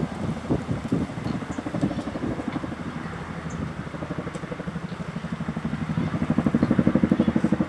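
Tandem-rotor Chinook helicopter's blades beating in a rapid, even pulse as it approaches, getting louder over the last couple of seconds.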